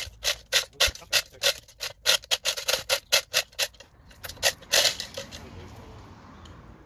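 Chain block ratcheting under load as its hand chain is hauled, a rapid run of sharp metallic clicks about three or four a second, while it drags a holly stump and its roots out of the ground. The clicking stops about five seconds in.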